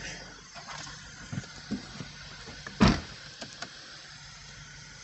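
Audi B8 S5 engine idling in the background as someone gets into the car: a few light knocks and shuffles, then a car door slammed shut about three seconds in.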